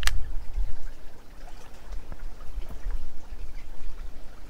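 River water trickling and lapping against the bank, under a low uneven rumble of wind on the microphone. One short sharp sound comes right at the start.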